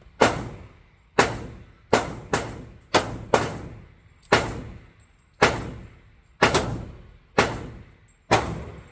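A string of about a dozen pistol shots, probably from a Glock, fired at an uneven pace with a few quick doubles. Each shot has a short ringing tail from the enclosed range.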